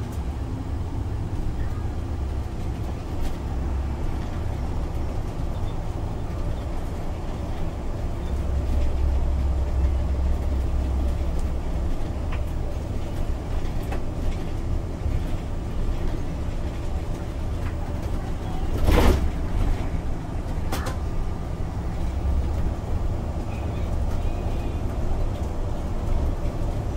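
Inside a MAN Lion's City articulated bus with a biogas engine, driving along: a steady low engine rumble and road noise that swell twice. About two-thirds of the way through there is a sharp, loud thump, then a lighter one a couple of seconds later.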